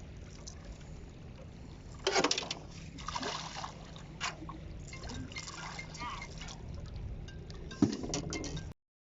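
Water splashing and sloshing beside a small fishing boat, in irregular bursts starting about two seconds in, over a steady low hum; the sound cuts off abruptly near the end.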